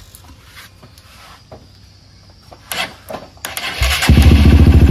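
A few light clicks and rattles, then about four seconds in a Honda CRF motorcycle engine starts and runs with a fast, even beat.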